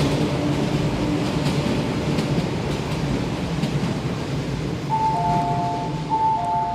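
MTR East Rail Line SP1900 electric train running with a steady rumble. About five seconds in, a two-tone signal sounds twice, a higher tone joined by a lower one.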